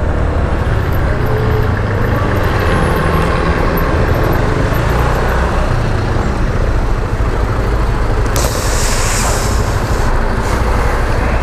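Honda SH125i scooter's single-cylinder engine running, with wind and road rush, as it rides through city traffic. A brief sharp hiss sounds about eight seconds in.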